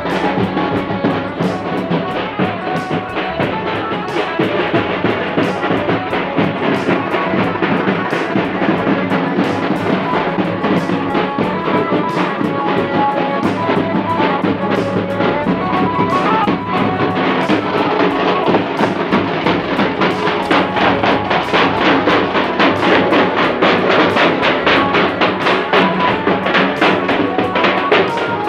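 Procession band music: large bass drums beaten in a steady rhythm with a melody playing over them. The drumming gets denser and a little louder past the middle.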